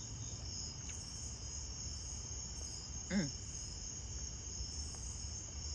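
Steady chorus of crickets, a continuous high-pitched trill. About three seconds in, a person makes one short vocal sound.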